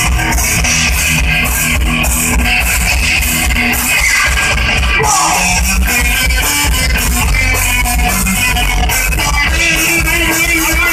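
Punk rock band playing live: electric guitar, bass guitar and drum kit, loud and continuous.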